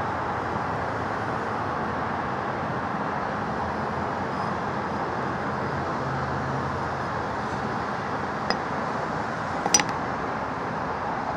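Steady background hiss, with two sharp metallic clinks near the end, the second louder and ringing: the steel hammer head tapping on the hard floor.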